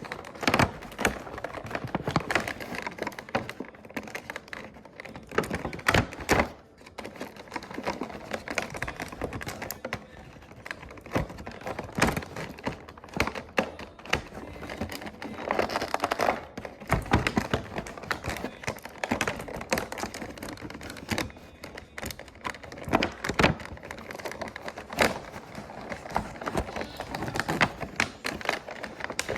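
Irregular clicks, taps and knocks of small plastic toy pieces and packaging being handled and set down.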